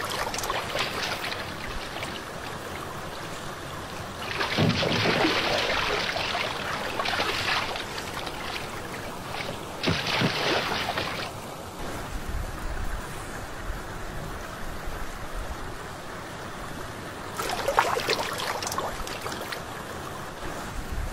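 Water noise: a steady rushing hiss with louder surges of splashing or rushing about four, ten and eighteen seconds in.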